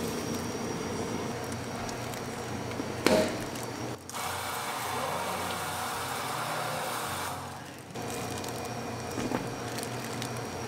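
A countertop can-sealing machine seams an aluminium lid onto a plastic drink can: a sharp clunk about three seconds in, then the machine runs steadily for almost four seconds and stops.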